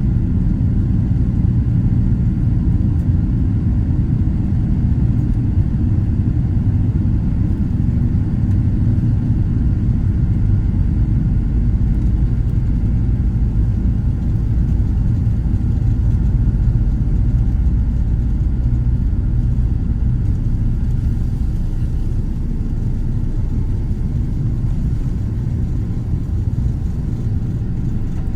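Steady, loud low rumble of a jet airliner as heard from inside the cabin, easing slightly near the end.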